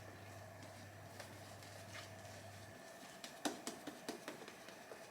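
Faint scattered clicks and taps from handling wet-shaving gear, with a quick cluster of them about three seconds in. A low steady hum in the room stops just before that cluster.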